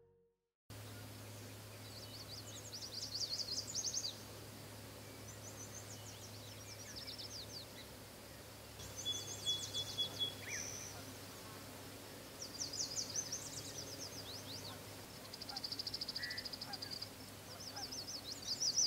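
Small songbirds singing outdoors: short, high, fast trilling phrases repeated every couple of seconds, over a faint steady low hum.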